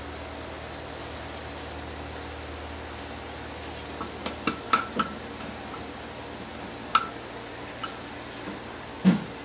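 Small metal fittings and a plastic bag being handled: a quick run of sharp clinks about four to five seconds in, another click about seven seconds in, and a louder knock near the end, over a steady low hum.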